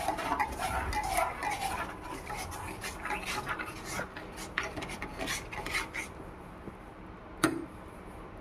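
Dishes and kitchen utensils clinking and scraping, with one sharp clink near the end.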